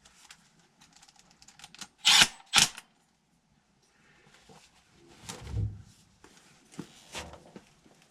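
A run of light clicks and knocks, with two loud sharp clatters about two seconds in and a duller, deeper thump a little after the middle.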